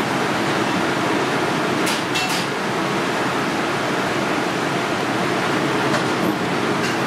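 Steady rushing background noise of a restaurant kitchen, with a few faint clicks about two seconds in and again near the end.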